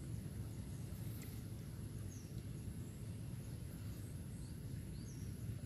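Field ambience: a steady high insect buzz over a low rumble, with a few short bird chirps about two seconds in and again near the end.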